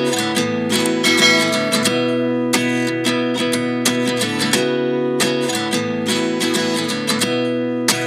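Background music: an instrumental stretch of an acoustic guitar pop song, strummed chords with no singing.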